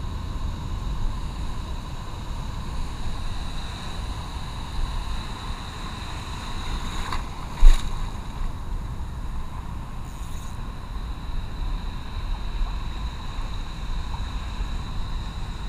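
Steady rush of choppy surf swirling around a wading angler, with wind on the microphone. One sharp thump about halfway through.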